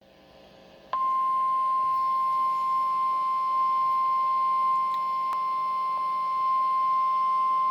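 Emergency-alert warning tone over a weather radio: a single steady high-pitched tone near 1 kHz, typical of the NOAA Weather Radio 1050 Hz warning alarm, that comes in abruptly about a second in and holds. It signals that a warning message follows. Faint radio hiss comes before it.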